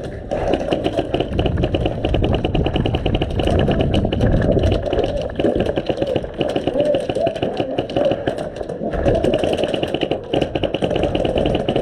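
Airsoft guns firing on full auto, a fast, even rattle of shots that runs in long stretches and picks up again about nine seconds in.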